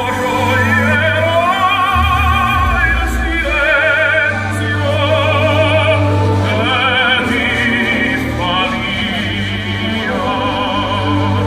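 Operatic singing with strong vibrato over an orchestral accompaniment, sustained notes that rise and fall in pitch.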